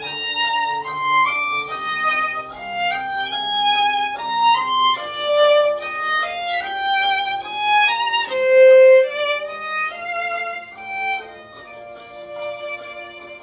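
Instrumental background music: a violin melody moving from note to note over quieter lower notes, with one long held note about nine seconds in.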